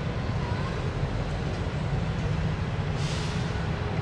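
Steady low diesel rumble of idling road traffic and a diesel locomotive approaching a level crossing, with a brief hiss about three seconds in.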